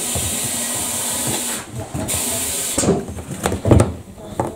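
Steady high hiss of a pressurised spray at the scooter's plastic fuel tank, breaking off about one and a half seconds in, coming back briefly and stopping again near three seconds. Then clicks and knocks as the fuel pump flange in the tank opening is handled.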